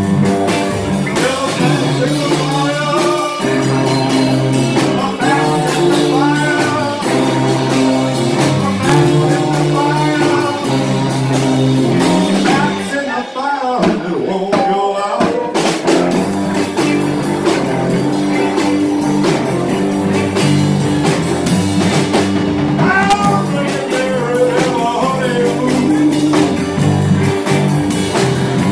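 Live swamp pop band playing: electric guitars, bass and drum kit. The low end drops out for about two seconds near the middle, then the full band comes back in.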